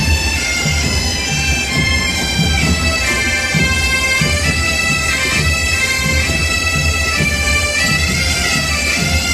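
Massed bagpipes playing a tune together over their steady drones.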